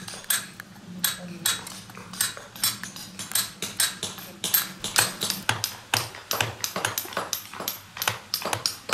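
Hand hammer striking a stone-carving chisel into stone: a steady run of sharp, ringing metallic taps, a few each second, irregular in spacing.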